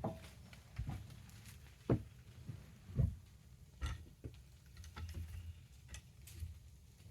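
Irregular knocks and thumps from hands-on work with a log and tools, with the two loudest thumps about two and three seconds in and fainter clicks after.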